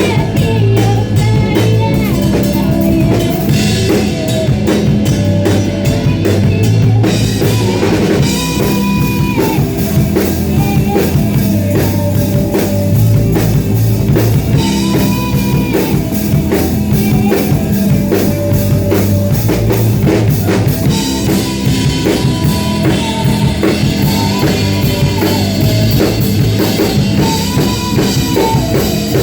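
Live band playing rock music, with a drum kit keeping a steady beat and guitar.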